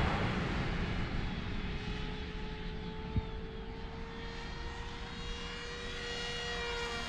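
Mini Skyhunter R/C plane's electric motor and propeller in flight: a steady whine that creeps slightly up in pitch over a rush of wind. One brief click about three seconds in.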